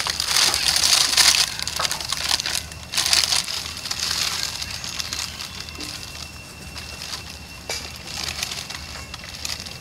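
Crackly rustling in bursts, loudest in the first second and a half, from monkeys scuffling on dry leaves and then a young monkey crumpling a thin plastic bag.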